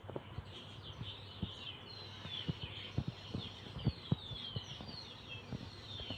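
Birds chirping: many short, quick falling chirps, with scattered soft knocks and rustles underneath.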